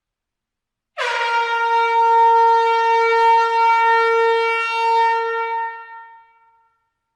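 Air horn sounding one long, steady blast of about five seconds, starting about a second in and fading out near the end.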